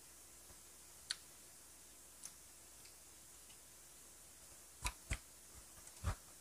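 Scattered sharp clicks of bamboo skewers of grilled food being handled on a plate, with a quick pair about five seconds in and a duller knock just after six seconds.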